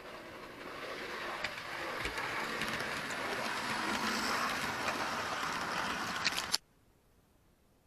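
Hornby OO gauge Class 101 DMU model train running along the track, a steady rushing whir of motor and wheels growing louder as it nears, with a few sharp clicks. It cuts off abruptly about six and a half seconds in.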